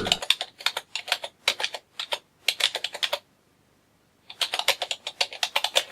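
Typing on a computer keyboard: quick runs of sharp key clicks, a pause of about a second near the middle, then another run of keystrokes.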